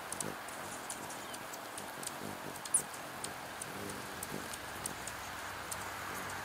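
Steady rain, with drops ticking irregularly on a clear plastic rain shield over a hummingbird feeder. A single short high chirp stands out a little under three seconds in.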